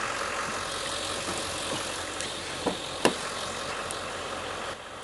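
Steady hum of an idling vehicle engine, with two sharp clicks about three seconds in as the car's door latch is opened.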